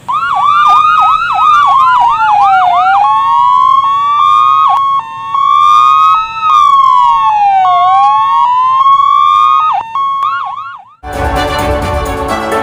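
Electronic ambulance siren switching patterns: a fast yelp for the first few seconds, then slow rising-and-falling wails broken by steady held tones, then a short yelp again before it cuts off suddenly about eleven seconds in. Music follows right after.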